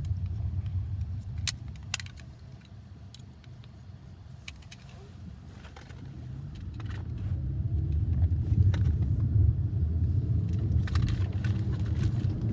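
Toy packaging being handled and opened: scattered plastic clicks and rattles over a steady low rumble that drops for a few seconds and then comes back stronger from about halfway through.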